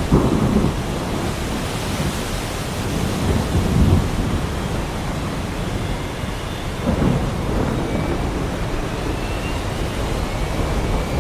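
Heavy rain falling steadily with rolling thunder, low rumbles swelling right at the start, about four seconds in and about seven seconds in.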